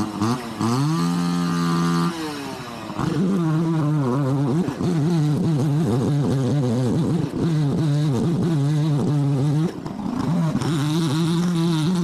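Gas chainsaw running at high throttle: it revs up at the start, eases off about two seconds in and again near the ten-second mark, and picks back up each time.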